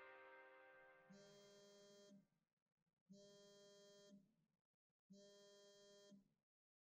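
A phone buzzing in three one-second pulses about a second apart, as from an incoming call, over the fading tail of a music cue.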